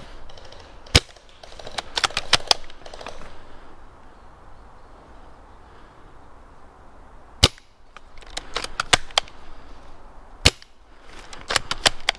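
Sawed-off JG Bar-10 bolt-action spring airsoft rifle firing three sharp shots, each followed about a second later by a quick run of clicks.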